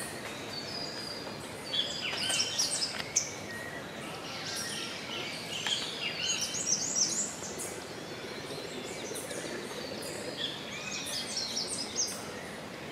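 Several wild birds chirping and calling over one another in quick clusters of high chirps and short whistles, over a steady background hiss.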